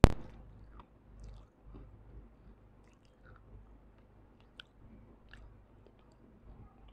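A person chewing a crunchy mouthful right against a clip-on microphone, with one sharp, loud crunch at the very start, then irregular fainter crunches and clicks as the chewing goes on.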